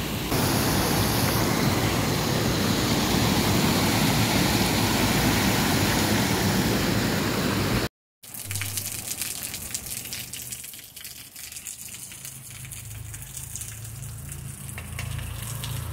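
Water rushing over a reservoir's concrete spillway across its whole width, a loud steady rush: the reservoir is full and overflowing. It cuts off abruptly about halfway through, giving way to a much quieter steady hiss with a low hum.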